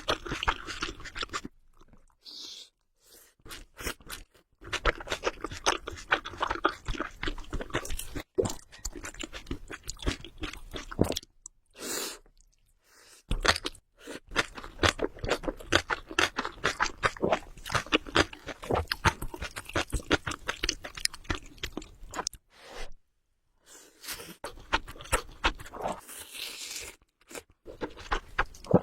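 Close-miked chewing of spicy ramen noodles: dense runs of quick wet clicks and smacks, in stretches of several seconds broken by short pauses.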